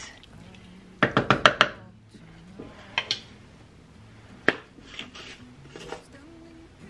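Kitchen utensils and containers knocking and clicking as they are handled during cooking: a quick run of about five sharp knocks about a second in, then a few single light clicks and taps.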